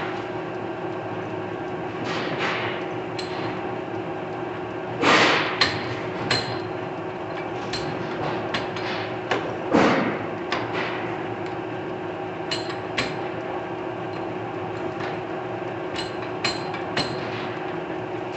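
1966 Poreba TR-70B engine lathe running with a steady gear hum while its carriage controls are worked by hand: about a dozen sharp metal clacks and knocks from the levers and handwheel, the loudest about five and ten seconds in.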